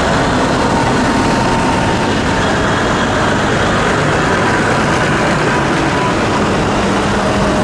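A convoy of farm tractors driving past close by, their diesel engines running in a steady, loud drone.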